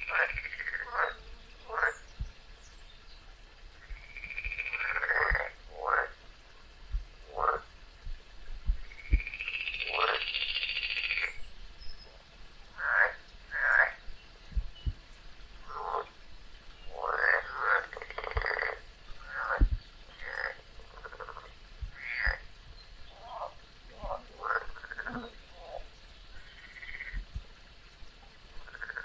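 Frogs croaking: a string of short calls at irregular intervals, with a longer rasping call about two-thirds of the way through.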